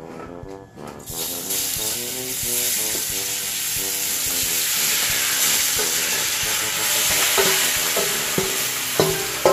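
Seasoned raw goat meat sliding from a bowl into hot oil in an aluminium pot, starting to sizzle about a second in and keeping up a steady sizzle as more meat goes in.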